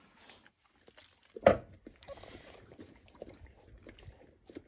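Eleven-day-old Dalmatian puppies making small squeaks, grunts and stirring noises, with one short, louder sound about a second and a half in.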